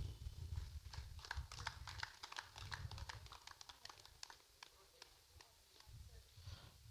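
Faint scattered hand clapping from a small group: a quick, irregular run of claps that thins out after a few seconds.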